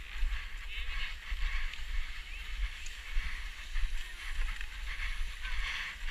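Skis sliding and scraping over packed snow, with wind buffeting a helmet-mounted GoPro in an uneven low rumble.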